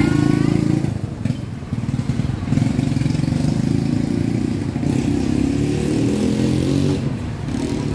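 Street traffic: motorcycles and cars driving past, their engines running in a continuous low drone that swells and eases. There are brief dips about a second in and near the end.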